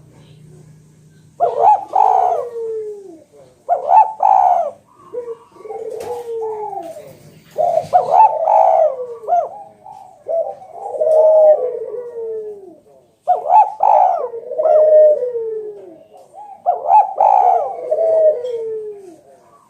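Spotted dove (Javan tekukur) cooing loudly in a run of about seven repeated phrases, each a few coos falling in pitch, with short pauses between them.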